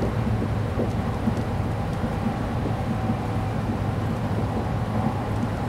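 Steady low rumble of a 700 Series Shinkansen heard inside the passenger car as the train runs: wheel, track and air noise, with no single event standing out.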